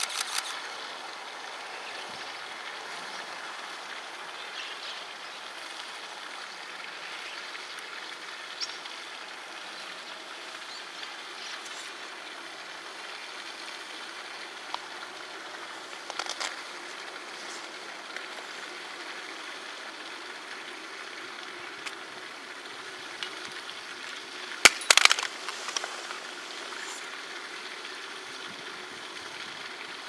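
Steady outdoor background noise, with a few scattered faint clicks and a short, loud burst of sharp clicks about 25 seconds in.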